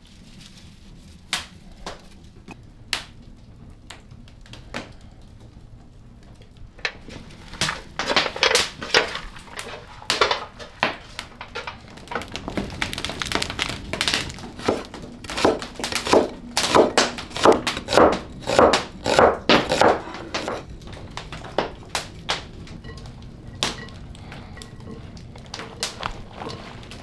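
Food-preparation knocks and crunching strokes: a few scattered knocks, then a dense run of loud crunching strokes, about two or three a second, for roughly twelve seconds, before they thin out again near the end.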